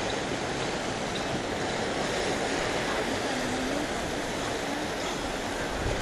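Steady wash of sea waves and wind along a rocky shore, an even, unbroken rushing noise.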